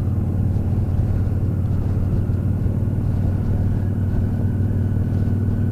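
Honda NT1100's parallel-twin engine running at a steady pace while riding, heard on board with a steady low rumble beneath.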